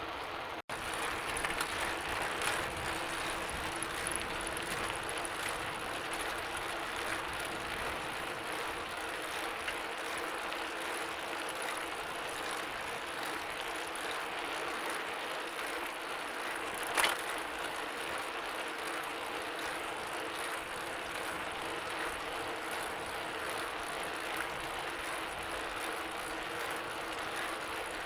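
Bicycle being ridden, its chain and freewheel giving a steady fine ticking over tyre noise. A brief dropout comes about half a second in, and one sharp click about two-thirds of the way through.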